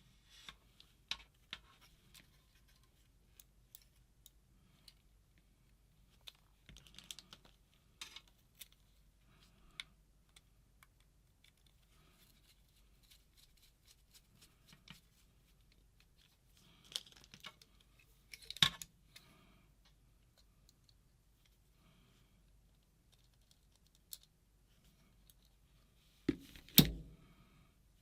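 Scattered small clicks and light taps of a screwdriver and small metal and plastic parts being handled while a circuit board is screwed into a paintball marker's grip frame, with a few louder knocks, the loudest about two-thirds through and near the end.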